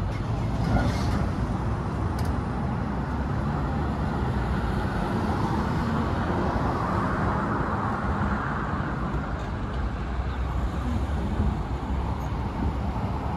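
Steady low rumbling outdoor noise, even throughout, with a few faint ticks.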